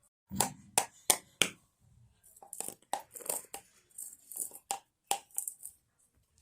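A baby shaking and knocking a container used as a rattle: four sharp knocks within the first second and a half, then a stretch of rattling with a few more knocks, stopping shortly before the end.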